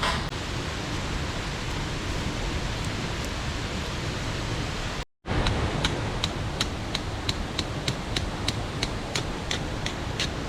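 Mountain stream rushing: a steady wash of water noise. It drops out for an instant about five seconds in, and after that a run of even ticks, about three a second, sounds over the water.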